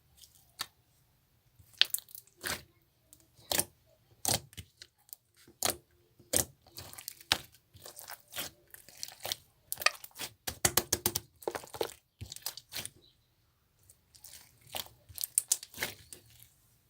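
Irregular crackling and crinkling, in quick clusters of sharp crackles with short pauses between them, densest a little past the middle and again near the end.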